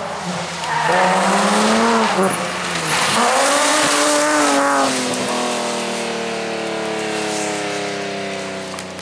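BMW M3 rally car's engine under hard acceleration, its pitch climbing, dropping sharply at a gear change about three seconds in, then climbing again. From about five seconds the engine note falls steadily as the car comes off the throttle.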